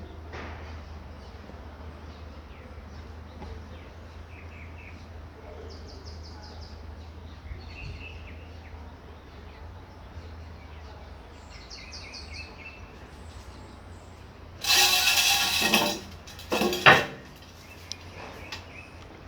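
Steady light rain with short bird chirps, broken near the end by two loud, sudden sounds, the second the louder.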